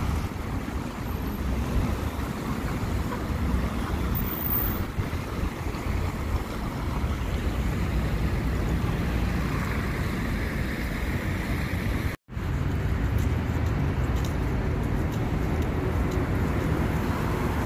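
Road traffic with city buses passing close by, a steady low rumble of engines and tyres. The sound cuts out for an instant about twelve seconds in.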